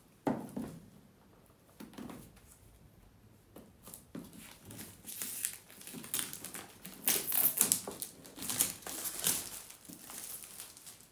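Clear plastic shrink-wrap crinkling and rustling as it is pulled off a cardboard headphone box, densest from about five seconds in until near the end. One knock right at the start as the box is handled.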